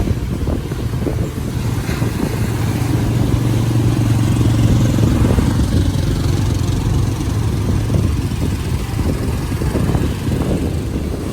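A motor's steady low drone that swells for a few seconds and then fades, as if passing by, over surf and wind buffeting the microphone.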